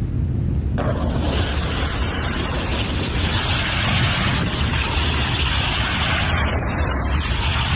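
Steady low rumble with a rushing noise like wind buffeting the microphone. A brighter hiss joins abruptly about a second in and carries on.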